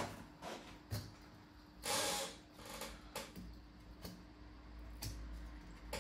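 Light clicks and taps of small tools and parts being handled on a laptop under repair, with one short swishing noise about two seconds in.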